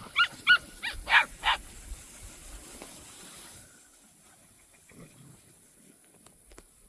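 Maremma livestock guardian puppy yipping: about six short, high-pitched yips packed into the first second and a half, then it falls quiet.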